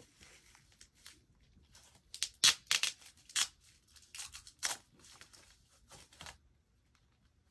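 Packing wrap rustling and crinkling as it is handled and pulled out of a new leather bucket bag, in an irregular run of sharp crackles from about two seconds in until shortly after six seconds.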